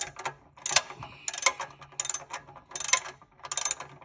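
Ratchet wrench clicking in short runs, one stroke about every two-thirds of a second, as a 17 mm socket unscrews a car's oil drain plug.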